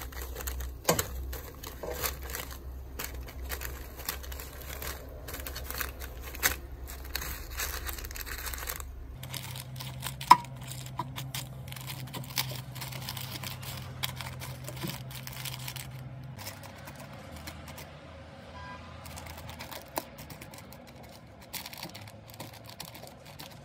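Metal kitchen tongs and a basting brush working over coated pork pieces on a parchment liner in an air fryer basket: irregular small clicks and taps on the basket with crinkling of the paper, one sharper tap about ten seconds in. A low steady hum sits underneath for the first two-thirds.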